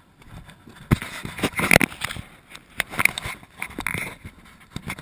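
Stones crunching and clattering on a rocky, gravelly shore in a run of irregular knocks and scrapes, with handling noise close to the body-worn camera, as a trout is landed at the water's edge.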